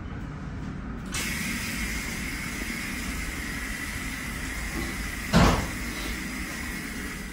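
A steady airy hiss with a faint high whistle, starting suddenly about a second in, broken by a single short loud thump about five seconds in.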